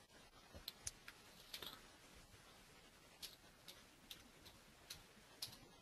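About ten faint, irregularly spaced clicks from a computer mouse and keyboard, as an icon is double-clicked and a password is typed.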